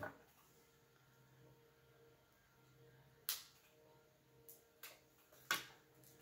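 A few sharp clicks and taps from small parts, a plastic parts bag and a small knife being handled on a glass tabletop, the loudest at the very start, about three seconds in and near the end, in an otherwise quiet room.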